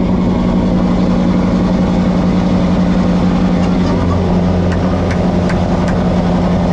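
Scania R650's V8 diesel engine running at a steady note, heard from inside the truck's cab, with a few short sharp clicks about five seconds in.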